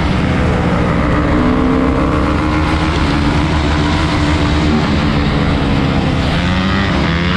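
Motorcycle engines running at a steady, held throttle while riding, with wind rushing over the microphone.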